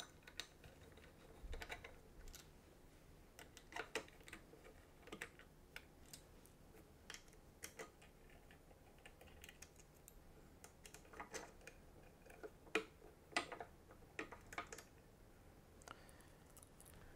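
Faint, irregular clicks and ticks from a 3 mm hex key working the screws that hold the cam plate on a Shotoku TE-12 camera head, metal tapping and turning against metal. They come scattered, some in small clusters.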